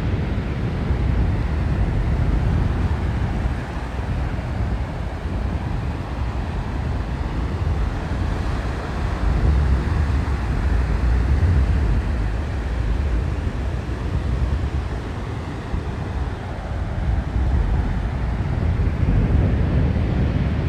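Wind rumbling and buffeting on the microphone over the steady wash of sea surf on the beach.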